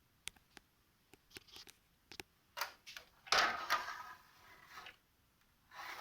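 Handling noise: a few small sharp clicks and knocks, then a couple of seconds of scraping and rustling about halfway through.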